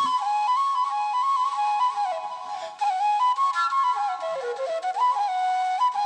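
Background music: a solo flute melody, one line stepping from note to note and dipping lower about four seconds in, with no drums.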